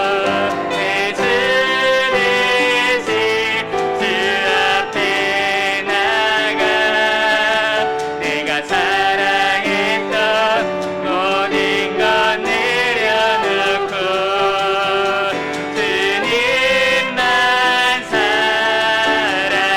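Church praise team singing a worship song with piano accompaniment, voices holding long sung notes over sustained piano chords.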